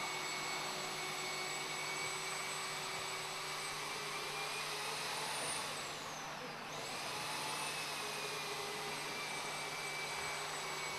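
Steady mechanical drone with a constant high whine, as of a motor running. It dips briefly about six and a half seconds in.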